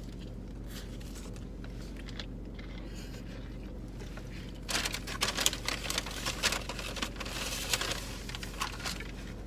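Fast-food paper wrappers or a bag crinkling and rustling in quick crackles, starting about five seconds in, over a steady low hum inside the car.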